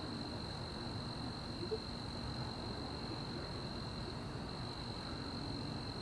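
Quiet night ambience: a steady high insect trill over a low rumble.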